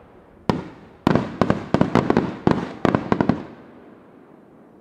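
Aerial firework shells bursting: one bang about half a second in, then a quick volley of about a dozen bangs over the next two and a half seconds, with a long echo fading after them.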